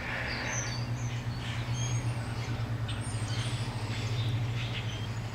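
Small birds chirping, a scatter of short high chirps, over a steady low hum.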